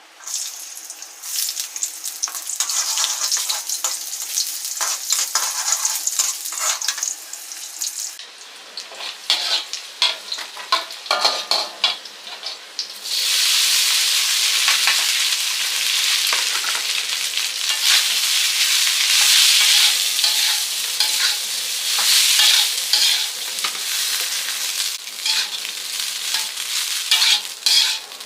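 Food frying in a pan while it is stirred: a crackling sizzle with clicks and scrapes of the utensil against the pan, turning suddenly much louder about halfway through.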